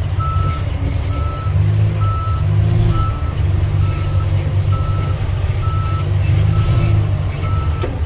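Backhoe loader's back-up alarm beeping steadily, about once a second, over the steady running of its diesel engine while the machine reverses.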